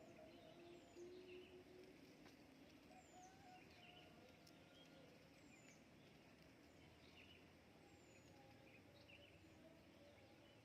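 Faint wild birds calling over a soft outdoor hiss. One bird repeats a short, high, falling whistle every second or two, with scattered chirps from others.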